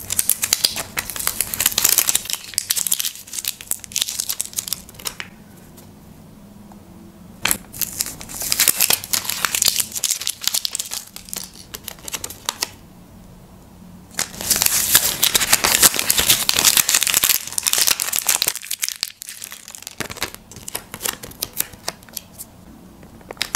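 Paper stickers crinkling and rustling in the hands as they are peeled from their backing and handled. The sound comes in about four stretches of several seconds each, with quieter pauses between.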